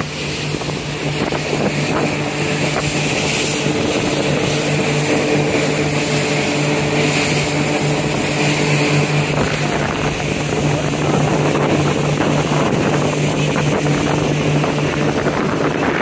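Yamaha jet boat's engine running steadily, a constant drone held at one pitch, over a steady rush of wind and water noise.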